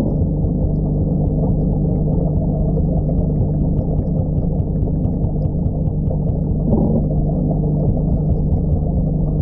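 Steady, muffled low hum of an aquarium's air pump and sponge filter, with faint bubble ticks, heard underwater through a camera submerged in the tank. There is a brief louder swell about seven seconds in.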